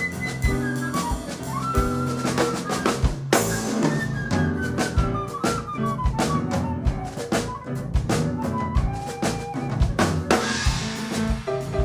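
Live band playing an instrumental break in a musical-theatre song: a drum kit with bass drum and snare keeps a steady beat under bass notes and a wavering melodic line that falls in pitch.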